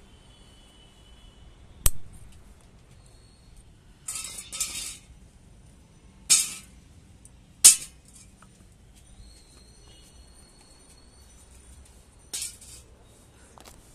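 A sharp knock about two seconds in, then several short bursts of rustling and crackling as bitter gourd vines and leaves are pushed aside and handled while the gourds are picked.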